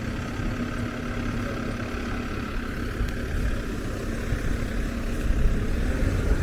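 Snowplow truck's engine idling with a steady low rumble; a steady hum within it fades out about halfway through.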